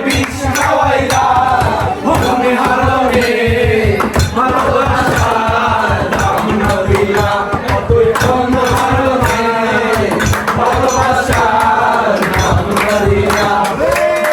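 Music: voices singing over a fast, steady drum beat.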